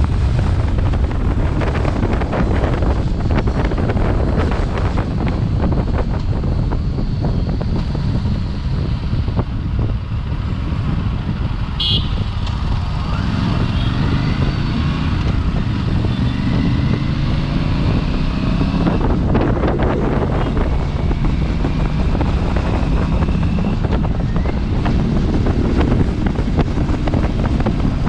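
Aprilia RS 457's parallel-twin engine running, with wind noise on the microphone. Midway the engine pitch climbs steadily for several seconds.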